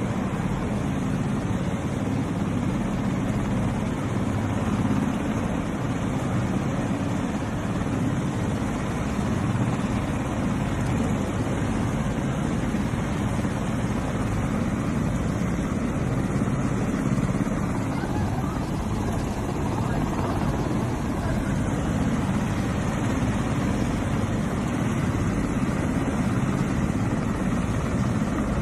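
Steady, loud rumble of military helicopters flying low overhead.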